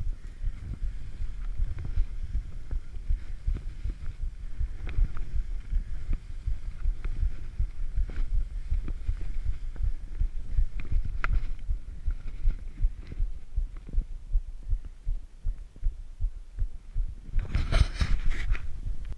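Skis running downhill over snow, heard on a body-worn action camera: a steady low rumble full of irregular thumps and knocks from the skis and camera mount. Near the end a louder rush of noise lasts about a second.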